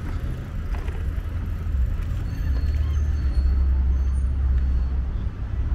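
Outdoor ambience of road traffic, mostly a steady low rumble.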